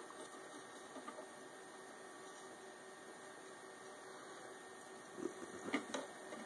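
Faint steady electrical hum. About five seconds in come a few short clicks and rustles as the wires and bulb holder are handled.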